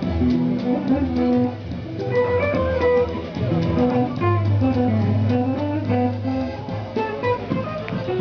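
Small swing band playing live: guitar and bass under a melody line of held notes.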